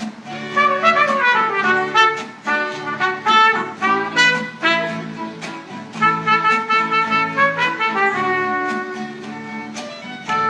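Upbeat music led by trumpet-like brass playing quick melodic runs over a steady bass pattern.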